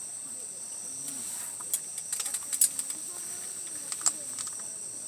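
Campfire wood crackling: a cluster of sharp pops about two seconds in, and another single pop near four seconds. Steady high chirring of insects runs underneath.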